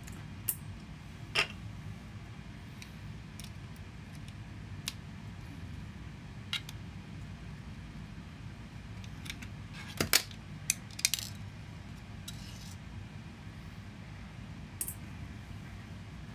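Scattered light metallic clicks and clinks of small screws and printer parts being handled during disassembly of a hot end fan shroud, the loudest few close together about ten seconds in, over a faint steady low hum.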